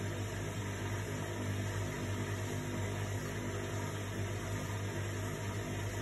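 Indesit front-loading washing machine running a cool wash, its drum turning the laundry slowly at the bottom rather than spinning. It gives a steady low motor hum over an even whirring noise.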